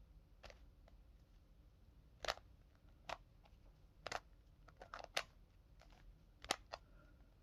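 Stiff Rubik's Cube being turned by hand: faint, irregular clicks and clacks of its layers, about a dozen over several seconds, as the second layer is being solved.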